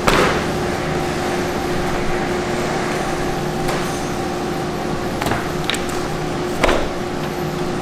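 A raw pork belly slab slapped down onto a plastic cutting board, then a few small knocks and another thud near the end as the butcher works the meat with a knife and gloved hands, over a steady machine hum.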